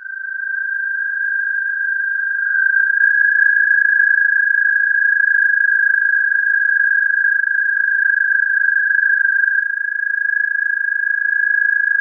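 American toad calling: one long, steady, musical trill at a single high pitch, held for about twelve seconds.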